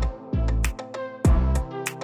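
Instrumental background music with deep kick drum beats, sharp percussion and a melody.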